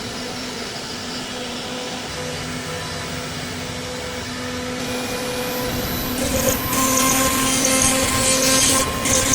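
A CNC router spindle runs with a steady whine. From about six seconds in, the bit cuts into MDF, and a louder, rougher cutting noise comes in with short breaks.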